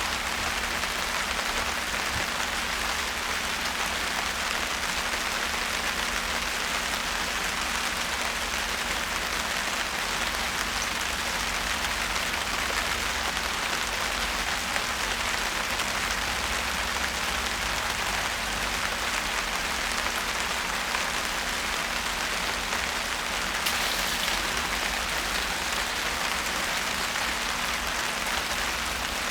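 Steady rain falling on surfaces, an even hiss with no break, over a faint steady low hum. About four-fifths of the way through, a brief louder high hiss rises over it.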